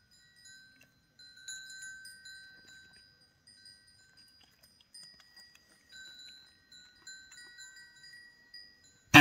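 Soft metallic chime tones ringing on and off, several clear pitches each held for a second or two. Right at the end a goat gives one short, loud snort, clearing a fly from its nostril.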